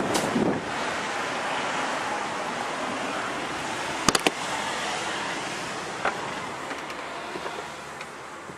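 Steady rushing wind noise on the microphone, broken about four seconds in by a quick cluster of sharp clicks as the motorhome's cab door latch is worked, with a lighter click a couple of seconds later.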